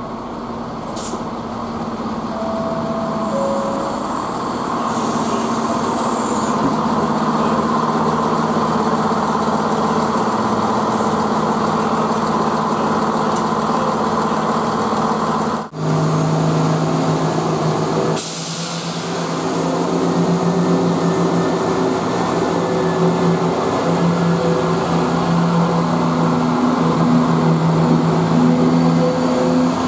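Class 170 Turbostar diesel multiple unit running into the station, its underfloor diesel engines droning steadily. There is a brief high squeal about five seconds in and a short burst of hiss about eighteen seconds in.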